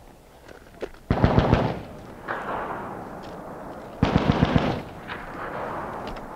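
Two short bursts of automatic machine gun fire, the first about a second in and the second about four seconds in, each followed by a fading echo.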